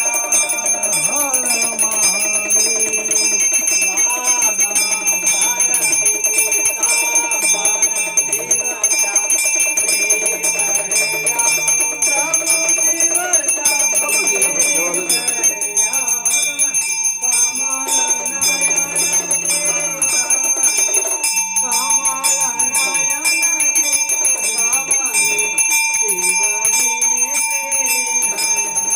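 Bells ringing steadily over music with a wavering melody.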